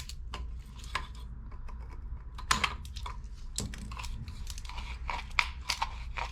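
Irregular plastic clicks and crackles from a 3D-printed print-in-place hinge being handled and worked, with a few sharper snaps among them.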